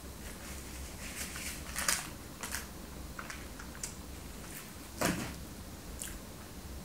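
Quiet eating and handling sounds close to the microphone: chewing and scattered small clicks and crackles of a paper tissue and paper donut box, louder twice, about two and five seconds in, over a low room hum.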